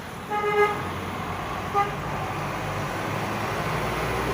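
A vehicle horn toots twice, a short beep about a third of a second in and a briefer one about a second later, over the low rumble of passing traffic that swells toward the end.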